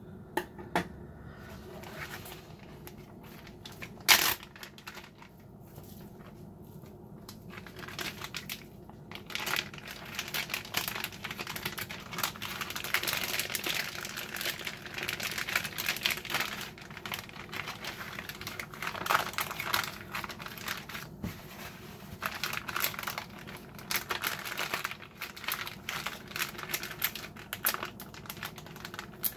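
Clear plastic zip-top freezer bag crinkling and rustling as a raw ribeye steak is packed into it and the bag is pressed shut. A single sharp knock comes about four seconds in, and the crinkling starts about eight seconds in.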